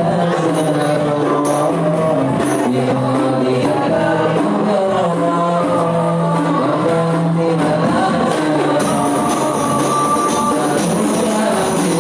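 Rebana frame drums beating a steady rhythm under sung devotional verses (sholawat).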